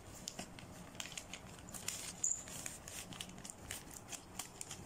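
Thin clear plastic packaging sleeve crinkling faintly as it is handled, with scattered light crackles and a short high squeak about two seconds in.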